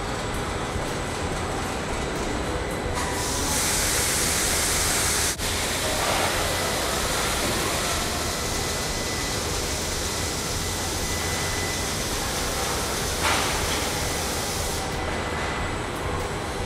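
Steady rumbling noise with hiss, like the inside of a moving train, growing brighter about three seconds in and dipping briefly a couple of seconds later.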